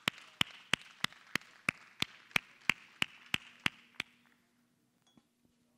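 Audience applause dying away, led by one person clapping steadily close by at about three claps a second; the clapping stops about four seconds in.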